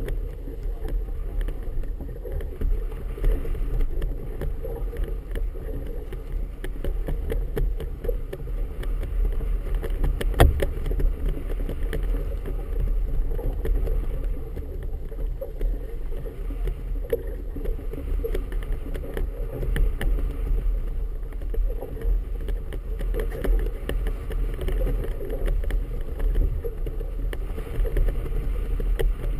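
Wind buffeting the microphone and choppy harbour water lapping and slapping against the hull of a moored boat, with many small splashes and one sharper knock about ten seconds in.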